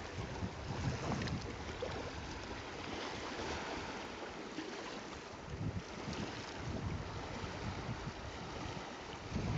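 Wind buffeting the microphone in low gusts, over a steady wash of small waves on a rocky seashore.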